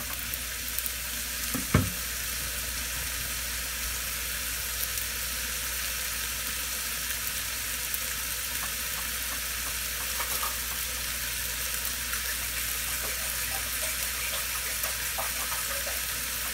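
Sprouts and cherry tomatoes sizzling steadily in oil in a frying pan, with one sharp knock a little under two seconds in.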